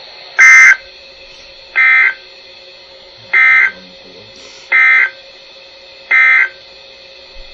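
Emergency Alert System digital data tones from a weather radio: five short, screeching two-tone data bursts about a second and a half apart, the end-of-message code that follows a warning broadcast.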